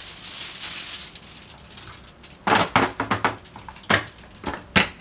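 Aluminium foil crinkling as a sheet is handled and spread out, in several short crackling bursts over the second half.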